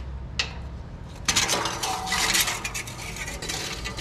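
Metal clinking, clattering and scraping: tools and metal parts being handled. A single click comes first, then a busy run of clatter from about a second in.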